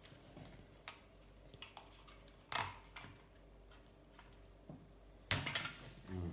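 Adhesive tape being handled and pressed on by hand: scattered clicks and crackles, the loudest about two and a half seconds in and again about five seconds in, the second trailing off in a brief rustle.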